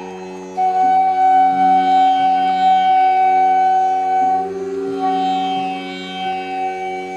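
Background Indian instrumental music: a long held melody note over a steady drone.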